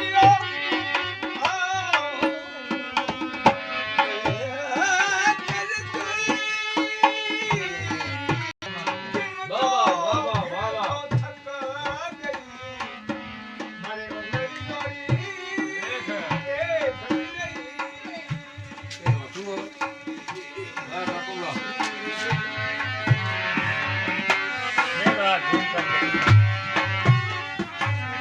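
Instrumental passage of a Rajasthani folk song: a hand-drum rhythm with steady strokes under a melody line.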